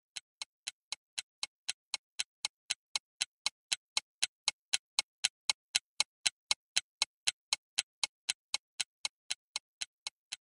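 Ticking clock sound effect: an even run of sharp ticks, about four a second, that swells in from faint and fades out again near the end.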